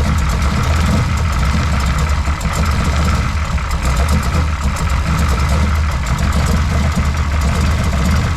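Turbocharged Ford Mustang engine idling steadily. There is no exhaust-leak tick at the driver's side header, only normal running noise: the header, resealed with high-temperature copper RTV instead of a gasket, is sealing.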